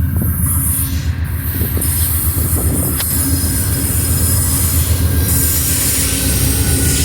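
Train passing close by: a steady low diesel rumble with a thin, steady high squeal of wheels on the rails.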